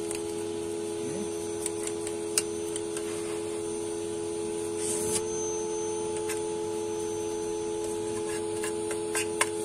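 Vacuum cleaner running with a steady whine, while its hose nozzle and a paintbrush rub and now and then tick against a transceiver's metal chassis and circuit boards as the dust is cleared out.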